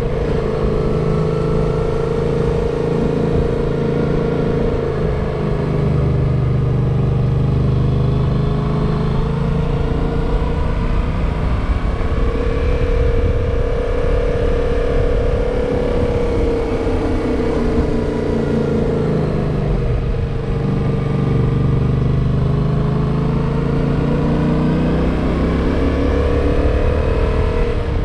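Yamaha motorcycle engine running on the move. Its pitch sinks slowly and climbs back up twice as engine speed falls and rises through the bends.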